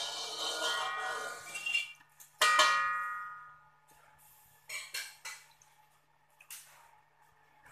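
Metal spatula scraping around an empty aluminium wok, the wok ringing with several clear tones. About two and a half seconds in, a sharp clang of metal on the wok rings out for about a second and a half, followed by a few light knocks.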